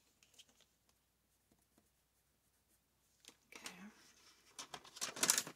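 Pencil faintly scratching as it marks patterned scrapbook paper, then paper rustling and sliding as the sheet is handled, loudest near the end.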